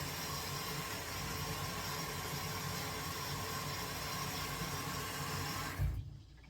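LG top-loading washing machine running with a steady hum and rushing noise; just before the end a low thump, then the noise cuts off suddenly.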